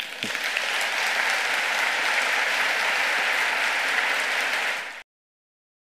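Audience applauding steadily, cut off abruptly about five seconds in.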